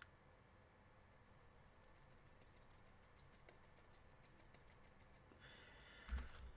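Near silence: room tone, with one mouse click at the start and a faint run of quick light ticks, about six a second, through the middle. A low thump comes near the end.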